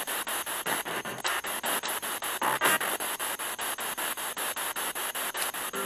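Spirit box scanning radio frequencies: a steady hiss of static chopped about six or seven times a second as it sweeps, with a brief louder snatch of sound about two and a half seconds in.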